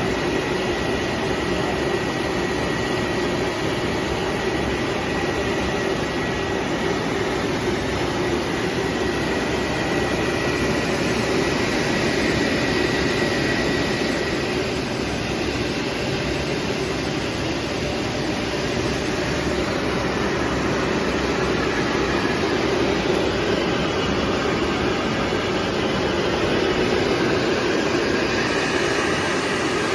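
Flexographic printing press running: a steady, even mechanical drone of rollers and drive, with a faint high whine that dies away about halfway through.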